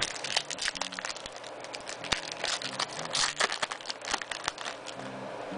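Foil wrapper of a basketball trading card pack crinkling and tearing as it is ripped open and the cards are pulled out: a quick run of sharp crackles that dies down about five seconds in.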